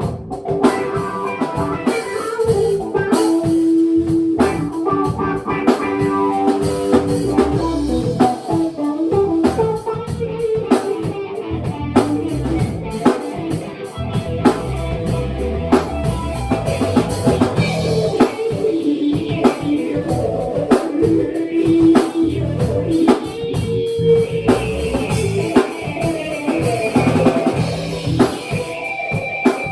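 A small band jamming live: a drum kit keeping a steady beat under a guitar, in a bluesy groove.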